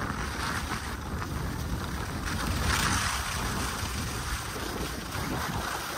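Wind buffeting the microphone in a low, rumbling rush, louder for a moment about halfway through.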